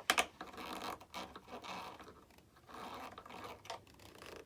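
Hands working the elevator hinge of a foam RC jet model: two sharp clicks right at the start, then scratching and rubbing as the part is adjusted to close a wide hinge gap.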